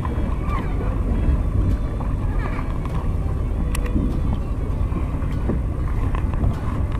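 Steady low rumble of wind and choppy sea water on a kayak-mounted action camera, with a few faint clicks from a baitcasting reel being handled.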